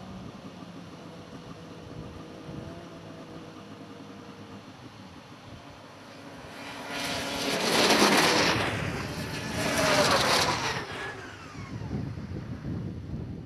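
Snowmobile engines idling at the start line, then two snowmobiles racing by close, the loudest passes about two seconds apart; the engine pitch drops as they go past and the sound fades away.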